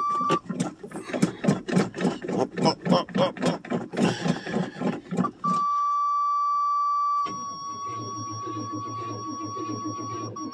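1985 Chevrolet Suburban's starter cranking the engine slowly, about four beats a second, for about five seconds without it catching, the sign of weak batteries. Before and after the crank the steady high-pitched dashboard warning buzzer sounds, and under it near the end a low steady hum with faint beats.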